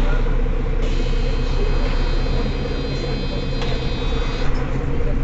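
Mercedes-Benz Citaro city bus diesel engine idling with a steady low hum. About a second in, a thin high-pitched whine joins it and stops near the end.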